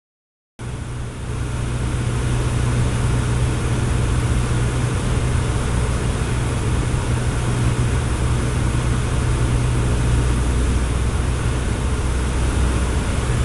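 Cessna 152's four-cylinder Lycoming O-235 engine and propeller running steadily: a constant drone with a strong low hum under a wide rushing noise. It starts abruptly about half a second in.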